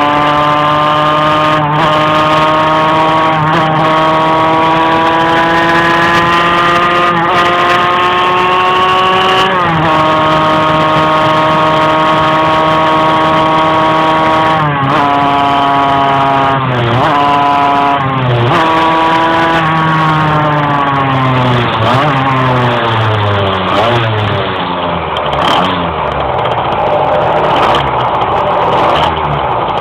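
Two-stroke moped engine running under load while riding. Its pitch climbs only slowly, dipping briefly several times, then falls away in the last third as it slows: an engine that has trouble revving up.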